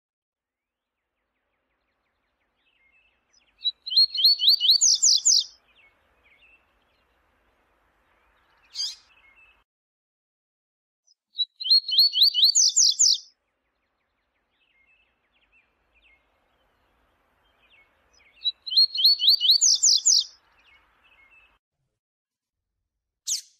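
Double-collared seedeater (coleiro) singing the 'viu-tiu' song type: three phrases about seven seconds apart, each a quick run of sharp high notes lasting about two seconds, with a single short note between them twice.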